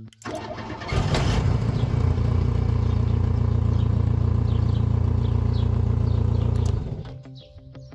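Renault 12 Toros four-cylinder petrol engine cranked by its starter, catching about a second in, then running steadily for about six seconds until the level drops away near the end. This is the car being started by remote through the new relay circuit.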